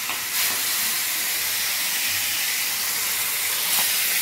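Spice-coated fish pieces frying in hot oil in a pan, a steady sizzle that grows louder about half a second in.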